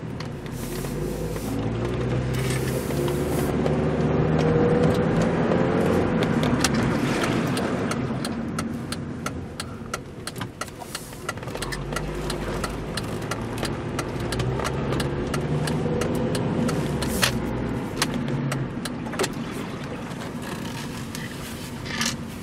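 2003 Mazda 6's engine heard from inside the cabin, pulling up through the revs as the car accelerates, easing off, then accelerating again about halfway through and settling near the end. Steady road and tyre noise and frequent small clicks and rattles run under it.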